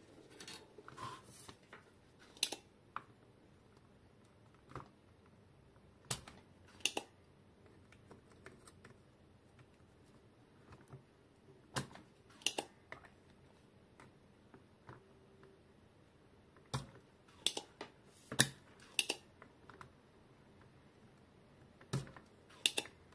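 Sharp clicks and snaps at irregular intervals, often two in quick succession: a spring-loaded desoldering pump being cocked and fired while faulty diodes are desoldered from a power-supply circuit board.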